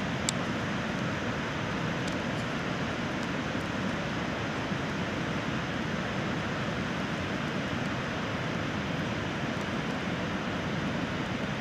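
Steady, even rushing roar of a large waterfall, Nugget Falls, heard from its lakeshore flats, with one short click near the start.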